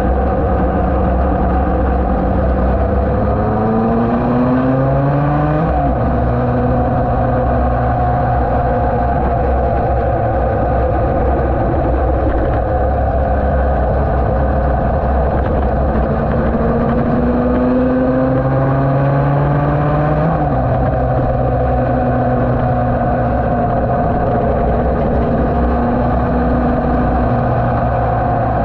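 Yamaha TD1B two-stroke twin racing engine under way at speed, heard from an onboard camera: its pitch climbs twice and drops sharply at upshifts, about six and twenty seconds in, holding steady in between. Heavy wind rush on the microphone underlies it.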